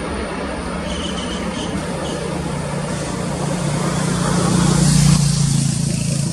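Jet engine noise from a departing Boeing 777 at take-off thrust as it climbs away. It is a steady, loud rush that swells to its loudest about five seconds in, brightening in the highs, then eases slightly.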